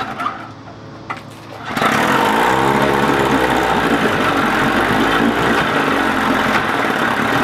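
1956 Evinrude 15 hp two-stroke twin outboard being pull-started cold with the choke out: two short bursts of cranking, then it catches about two seconds in. Its speed swings up and down briefly before it settles into a steady run.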